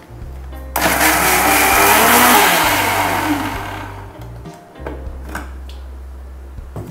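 Preethi mixer grinder running briefly, grinding mint-coriander paste with added water, then winding down as the motor stops. A couple of light knocks follow near the end.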